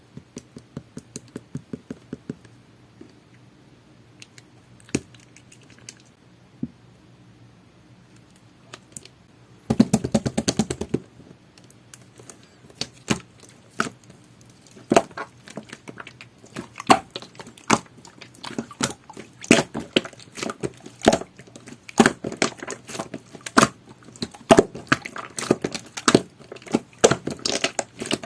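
Jelly-textured slime being pressed and worked by hand, giving sharp sticky clicks and small pops with short pauses between. There is a quick run of clicks about ten seconds in, and the clicking grows denser and more irregular in the second half.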